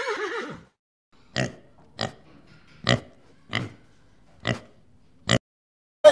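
Piglets grunting: six short grunts, about one a second. In the first half second the tail of a horse's whinny falls away.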